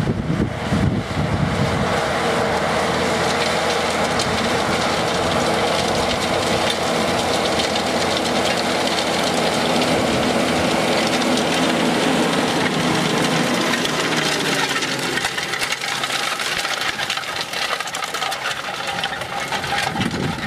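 Case IH tractor's diesel engine running steadily under load while pulling a trailed Proforge Inverta disc cultivator through ploughed soil. Its note falls a little about three-quarters of the way through.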